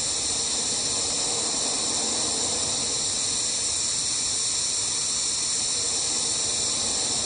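Compressed-air blowgun at 150 psi blowing a steady hiss of air across a small mass-balanced model control surface. The surface holds stable and does not flutter.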